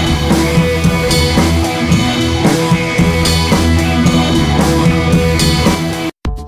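Background rock music with drums and guitar and a steady beat; it cuts off abruptly near the end, and after a moment of silence a different track begins.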